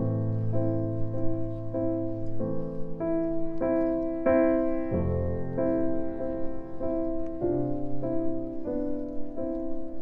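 Background music: a gentle piano melody of sustained notes that change about every half second.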